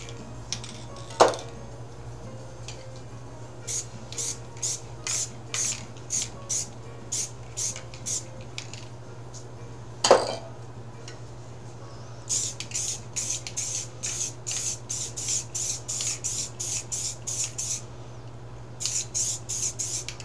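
Aerosol spray paint can spraying in quick short bursts, about two or three a second, in two runs, over a steady low hum. There are two sharp clinks, about a second in and about ten seconds in, which are the loudest sounds.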